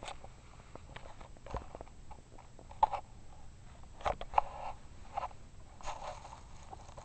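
Cat playing in catnip: scattered scuffs and rustles with a few sharp knocks, the loudest about three and four seconds in.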